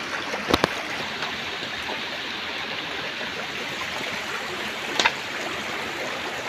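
Steady rushing of a stream flowing over rocks, with two sharp knocks about half a second in and another near five seconds.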